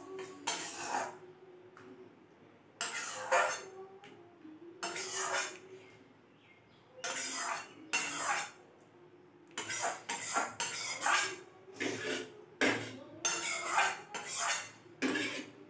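Metal spatula scraping the inside of an aluminium kadai, about fifteen short strokes, as the cooked curry is scooped out into a steel bowl.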